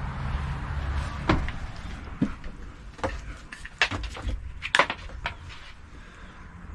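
A series of knocks and clicks, about eight of them, from things being handled and a door or cupboard being shut, over a steady low hum.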